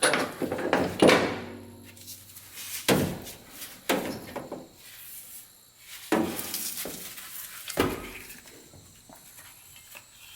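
Brake booster and pedal linkage being worked loose and pulled out through the firewall: about half a dozen metal clunks and knocks a second or two apart, with scraping and rustling between them.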